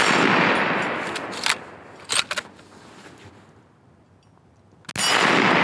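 Two rifle shots from a Steyr Mannlicher Ultra Light bolt-action in .222 Remington, one at the very start and another about five seconds in, each dying away over a second or so. Between them come a few sharp metallic clicks as the bolt is worked.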